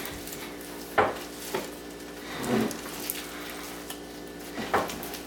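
Floam slime being squeezed and worked by hand, its styrofoam beads crackling, with a few louder squishes.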